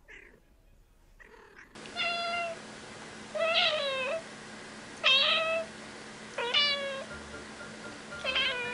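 Domestic cat meowing repeatedly: five drawn-out meows about a second and a half apart, starting about two seconds in, several dropping in pitch at the end.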